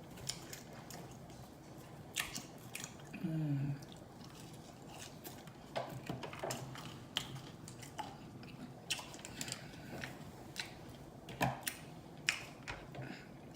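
Close-up chewing with irregular wet mouth clicks and smacks while eating fast-food fried chicken and toast, with a short hummed 'mm' about three seconds in.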